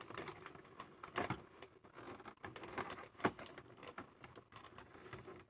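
Clear plastic packaging tray handled at close range: irregular light clicks and crinkles as fingers try to untwist the twist ties holding an action figure in it.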